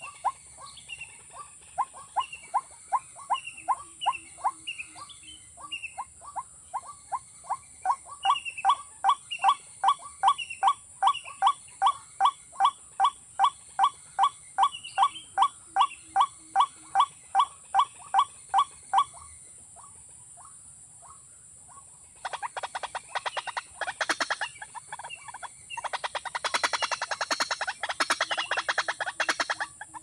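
Watercock calling: a long run of hollow, evenly repeated notes, a little over two a second, with higher chirping notes above them. After a short pause, a dense rattling, scuffling sound starts about two-thirds of the way in.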